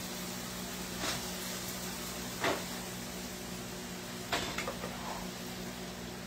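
A utensil knocking a few times against a frying pan of browned ground beef while the grease is worked out of it, over a steady kitchen hum. The knocks come singly about one and two and a half seconds in, then as a quick cluster past four seconds.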